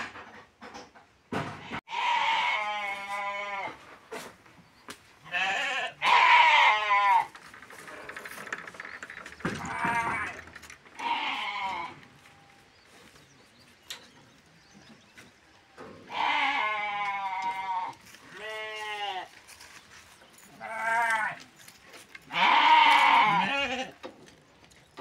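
Farm livestock bleating: a series of about eight wavering, quavering calls, each around a second long, coming in two bunches with short pauses between.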